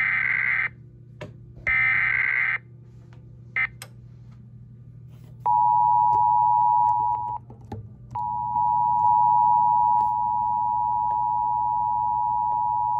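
Emergency Alert System broadcast played through an EAS decoder's speaker: two short data bursts of the SAME digital header, about two seconds apart, and a brief blip. About halfway through, the steady two-tone EAS attention signal begins, cutting out once for under a second and then holding.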